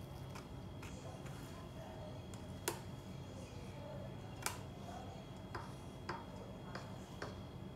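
Scattered light clicks and taps at an uneven pace, two of them sharper and louder near the middle, over a faint steady hum.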